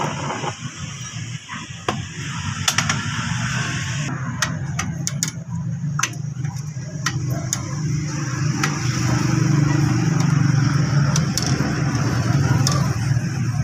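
Sharp metal clicks and taps, as of tools and parts being handled during work on a motorcycle, over a low steady hum that grows a little louder in the second half.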